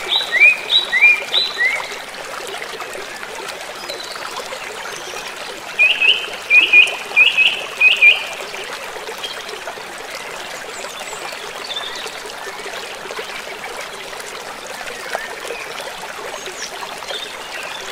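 Rushing river water running over rocks, with runs of four or five quick rising chirps near the start and again about six to eight seconds in.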